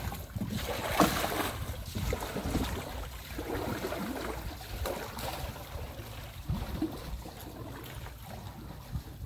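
Wing kayak paddle splashing in shallow water, strokes about a second apart, growing fainter as the kayak pulls away.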